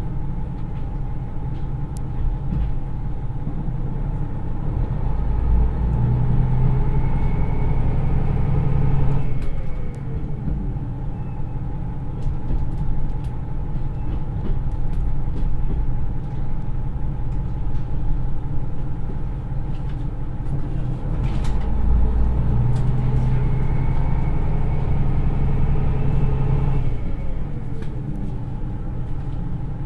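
Niigata DMF13HZA turbocharged diesel engine of a KiHa 110 railcar, heard from inside the passenger car, running under load. Twice it climbs in revs and then drops away suddenly as the hydraulic transmission shifts, each time followed by a falling tone.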